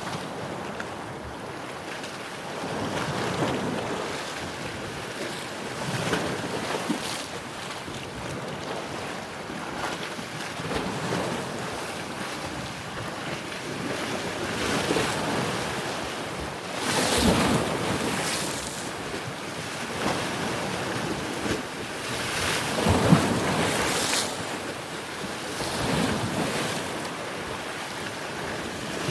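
Ocean waves breaking and washing on a shore, swelling and falling every few seconds, with the biggest surges about halfway through and again a few seconds later. Wind buffets the microphone.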